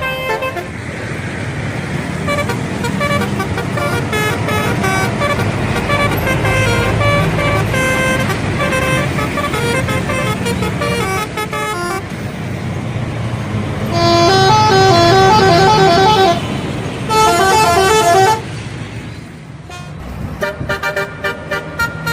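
Indonesian bus telolet horns playing rapid multi-note tunes over a running bus engine. The horn is loudest in two long bursts about two-thirds of the way in, drops away briefly, then quick short notes start again near the end.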